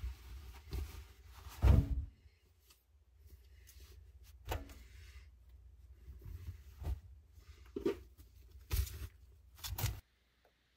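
Towels and soft toys being loaded into a front-loading washing machine drum: fabric rustling and several dull thumps, the loudest about two seconds in. The sound cuts off near the end.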